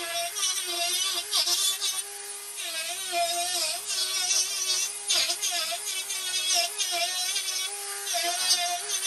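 Corded Dremel rotary tool running at high speed while carving small random texture cuts into Christmas-tree trunk wood. Its motor whine dips and recovers as the bit bites into the wood and lifts off, with gritty cutting noise coming and going about once a second.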